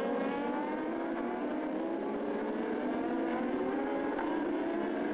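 A pack of superbike racing motorcycles at speed, several engines running at once with overlapping pitches that drift slowly up and down.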